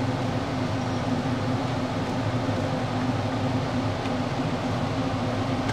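Steady low hum with an even hiss over it: kitchen background noise from the cooking at the stove, with no distinct knife or pan knocks.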